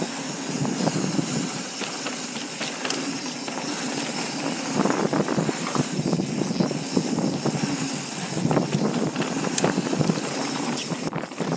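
Specialized Enduro mountain bike descending a packed-dirt trail at speed: a steady rushing noise of tyres and moving air, broken by frequent short rattles and knocks from the bike over bumps.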